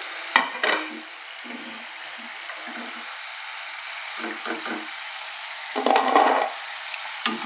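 Batter-coated potato sticks deep-frying in hot oil in a wok, a steady sizzle, on their second fry until crisp. A metal slotted spoon knocks sharply against the wok twice near the start, and there is a louder clatter about six seconds in as a spoonful of fried potatoes is tipped onto a plate.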